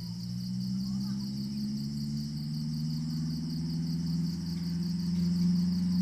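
Crickets chirping in a steady, rapidly pulsing chorus, under a louder low hum with several pitches that slowly swells toward the end.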